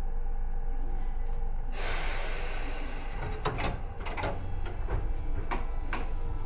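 Tobu 9000 series commuter train standing with its equipment humming: a sudden hiss of released air starts about two seconds in, followed by a handful of sharp clacks of underfloor switchgear as the train readies to start.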